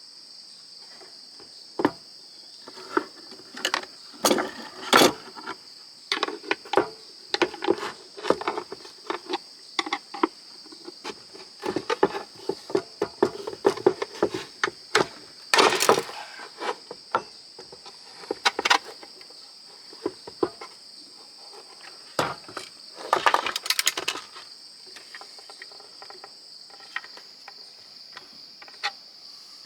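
Hand tools clicking, knocking and scraping on the metal and plastic parts of a waffle maker as it is pried apart, in irregular bursts that thin out near the end. A steady high cricket trill runs underneath.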